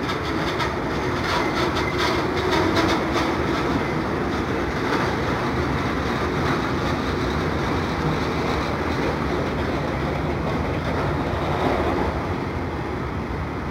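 Freight train of autorack cars rolling past: a steady rumble of steel wheels on rail, with a quick run of clicks in the first few seconds.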